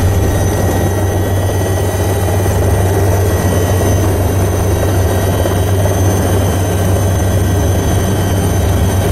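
Helicopter in flight heard from inside the cabin: a steady, loud low drone of rotor and engine, with a thin high whine held above it.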